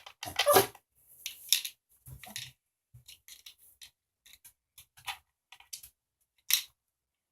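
Tiny plastic doll-size sandwiches being handled and set down: a run of light, irregular clicks and rustles, with sharper taps about half a second in and near the end.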